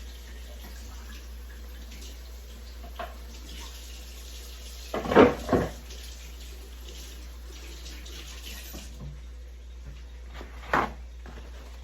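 Water running from a kitchen tap into a sink as a steady hiss that stops about nine seconds in. Two loud knocks come about five seconds in and another near the end.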